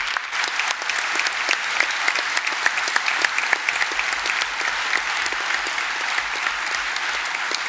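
A large audience applauding, many hands clapping at a steady level.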